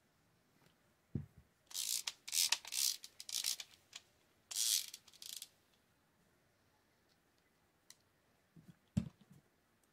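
A Shimano TLD 30 two-speed lever-drag fishing reel being handled during reassembly: a run of short, hissy, rasping bursts over a few seconds. Two soft knocks on the table come about a second in and near the end.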